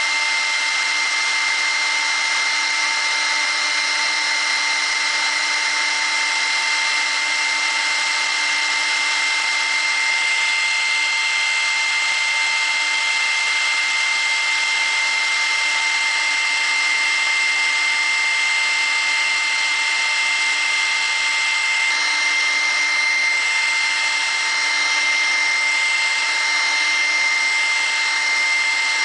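The 1.7 kW, 18,000 rpm spindle of a CNC router running a steady high whine while its 10 mm cutter mills a PVC block, with a continuous hiss of the cut.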